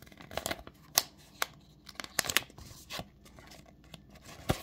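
Thin clear plastic trading-card sleeve crinkling and rustling as a card is slid into it: a string of short crackles and clicks, the loudest near the end.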